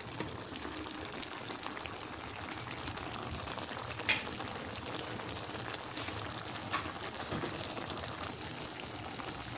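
Tomato sauce with milkfish pieces simmering in a pan: a steady bubbling sizzle, with a couple of small sharp pops.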